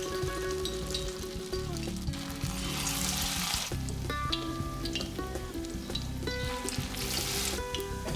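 Shrimp fritters deep-frying in hot oil, sizzling steadily, with the sizzle swelling about three seconds in and again near seven seconds.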